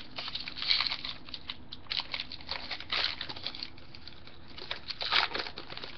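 Intermittent rustling and crinkling with soft clicks, from trading cards and foil card-pack wrappers being handled.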